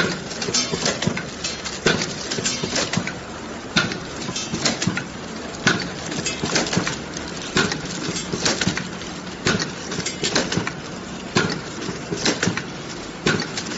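Tablet blister packing machine running, its stations knocking in a steady cycle about once a second with clatter in between, over a steady low hum.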